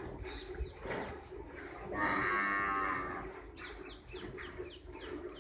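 A cow moos once, a single drawn-out call of about a second, starting about two seconds in.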